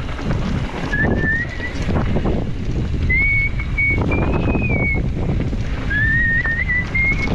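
Wind buffeting the microphone of a mountain bike camera while riding, with rustling and knocks from the bike on the trail. Over it come several short, high, wavering whistle-like squeals, about a second each, near the start, in the middle and near the end.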